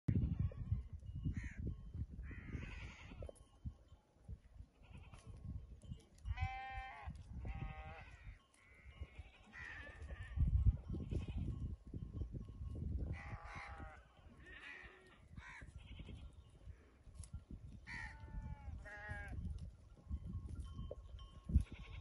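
Goats and sheep of a grazing flock bleating, several separate wavering calls scattered through, over a low rumbling noise.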